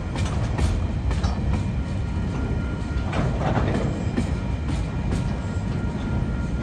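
TasRail freight train's container flat wagons rolling past: a steady low rumble of the wheels on the track, broken by short clicks and clunks as the wheels cross rail joints.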